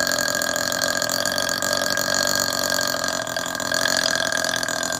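A young woman's long, drawn-out burp, held at a steady pitch with a gravelly rattle, stopping near the end.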